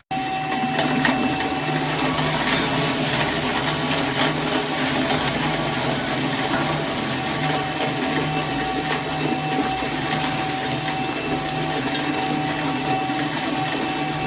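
Dual-rotor scrap shredder running steadily under load: a constant motor drone and a steady whining tone over a rushing, grinding noise of material being cut.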